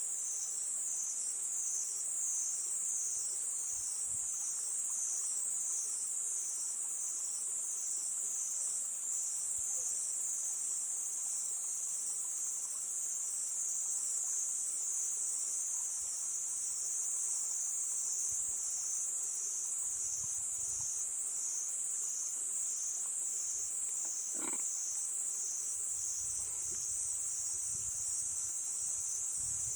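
A chorus of crickets chirping in a steady high band that pulses about one and a half times a second. About 24 seconds in there is one brief sharp sound, and near the end a low rumble of wind comes in under the crickets.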